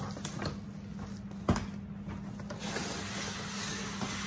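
Cardboard box being opened by hand: a sharp knock about a second and a half in, then rustling and scraping of the cardboard lid and packaging.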